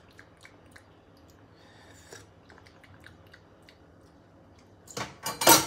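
Faint scattered clicks, then about five seconds in a loud, short slurp as a sip of fermented carrot brine is tasted.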